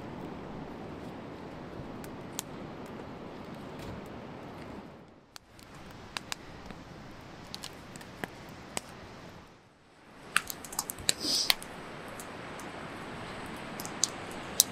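Wood fire crackling in a fire pit: a steady hiss with scattered sharp pops and snaps, which come thicker in the last few seconds.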